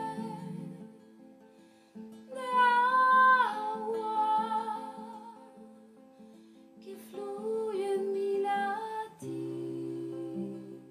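A woman singing two long phrases over an acoustic guitar playing picked notes. The first phrase slides down in pitch near its end, and the guitar plays on alone between the phrases and after them.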